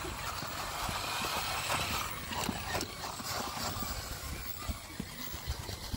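Motor-on-axle RC rock crawler with a Hobbywing Fusion Pro brushless motor climbing concrete steps: drivetrain noise with scattered knocks and scrapes as the tyres and chassis strike the step edges.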